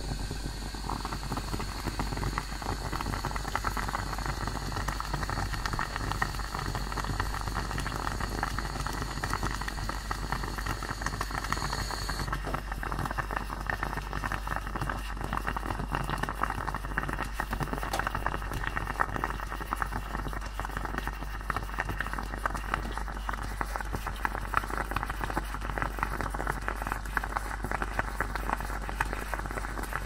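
Aluminium stovetop moka pot brewing on a gas flame, coffee gurgling and sputtering up through the spout into the upper chamber with a dense, steady crackle. A thin high whistle runs along with it and cuts off about twelve seconds in.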